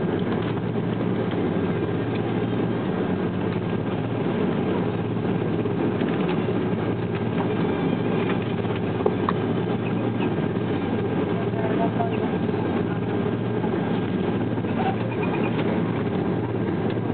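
Airliner cabin noise while taxiing: the steady hum and rush of the jet engines at low power, heard from inside the cabin, with no change in level.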